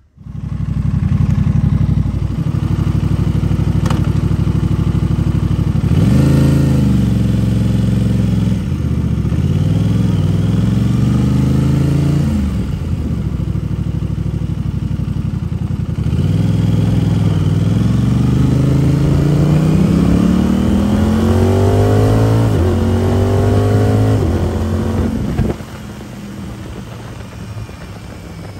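Aprilia RS 660 parallel-twin engine through a cheap aftermarket exhaust, pulling hard: the pitch climbs in long sweeps that are broken by sudden drops. Near the end it falls away to a much quieter run.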